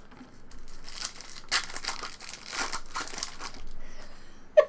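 Foil wrapper of a trading-card pack crinkling as it is handled and torn open, a dense crackly rustle lasting about three seconds.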